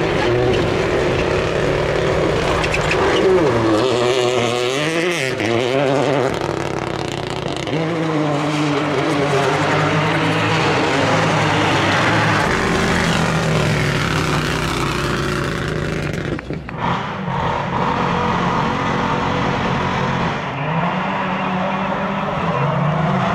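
Toyota GR Yaris Rally2 rally car's turbocharged three-cylinder engine revving hard, its pitch climbing and falling with the throttle and gear changes. About two-thirds of the way through it gives way to a Subaru WRX rally car's engine running at low revs and rising a little near the end.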